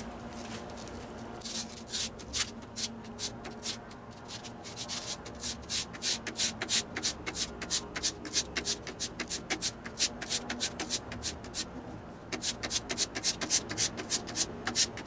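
A plane's steel cutting iron, clamped in a honing guide, is scraped back and forth on 220-grit wet/dry sandpaper laid on glass and wetted with Windex, working out an uneven bevel left by a grinding wheel. The quick, even scraping strokes start a second or two in, break off briefly about twelve seconds in, then resume.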